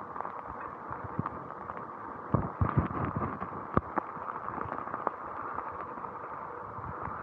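Heavy rain and a bicycle's tyres on a wet, rutted gravel path, with raindrops ticking on the camera. A few louder knocks come about two and a half seconds in as the bike jolts over the rough surface.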